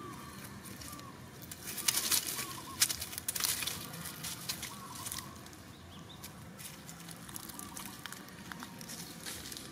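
Dry fallen leaves crackling and rustling in a cluster of sharp bursts from about two to four seconds in, as macaques shift about on the leaf-covered ground. Faint short chirps sound in the background.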